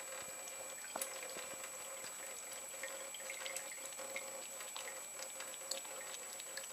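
A thin stream of water running from a kitchen tap into a stainless steel sink, with faint irregular small splashes and clicks as a cat laps at the stream.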